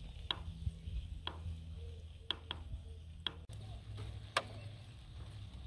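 Knife cutting mushrooms: a few sharp, separate taps, roughly a second apart, over a faint low outdoor rumble.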